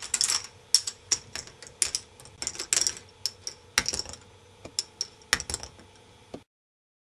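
K'nex ball machine running: balls and plastic parts clicking and clacking at an uneven rhythm, a few sharp knocks a second, over a faint steady hum. The sound cuts off suddenly near the end.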